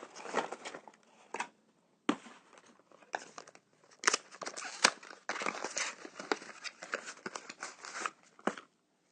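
Packaging of a chocolate surprise egg being torn open and crinkled by hand. It makes a dense, irregular crackling with sharp snaps, with a short lull a little after a second in, and it stops shortly before the end.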